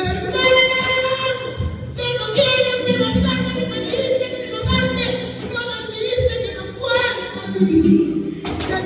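A woman singing long, held, wavering notes live, with acoustic guitar accompaniment plucking low notes beneath her voice.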